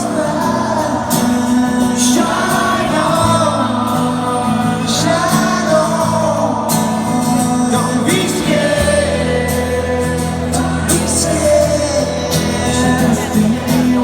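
Live rock band playing a slow ballad with a sung vocal over sustained bass notes and drum and cymbal hits.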